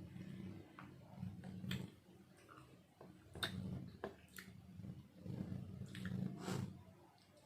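Close-miked eating sounds: chewing and wet mouth noises, with several short sharp clicks scattered through.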